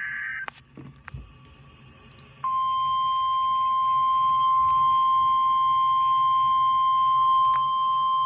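NOAA Weather Radio alert over a receiver speaker: the last half second of a buzzing SAME digital data burst, a couple of seconds of gap with a few clicks, then the steady 1050 Hz warning alarm tone, which comes in sharply at about two and a half seconds and holds loud and unbroken, signalling that a hazard message is about to follow.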